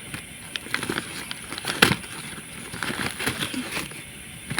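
Food packaging being handled: a run of irregular plastic clicks and crinkles, with one sharper click about two seconds in.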